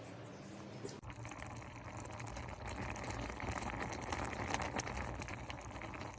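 Electric pressure washer spraying: a steady rush and spatter of water over the pump's low hum. It steps up abruptly about a second in.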